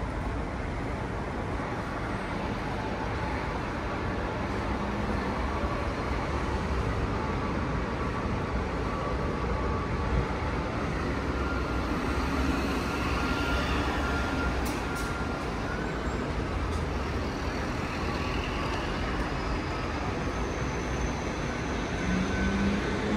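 Steady road traffic noise: an even, low-pitched background of passing vehicles with no distinct events.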